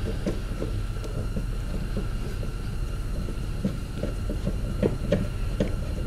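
A hex-key driver turning a small Allen screw out of a car's plastic door-pull trim, giving faint light ticks, more of them in the second half. A steady low hum runs underneath and is the loudest thing.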